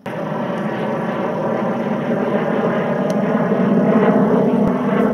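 Jet aircraft flying past, its engine roar a steady rushing noise that starts abruptly and grows a little louder over the next few seconds.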